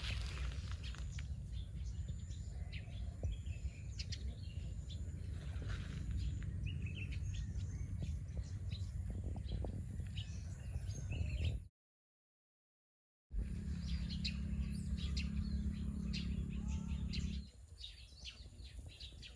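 Wild birds chirping and calling, many short chirps, over a low rumble of wind on the microphone. The sound cuts out completely for about a second and a half a little past halfway, and the wind rumble drops away near the end.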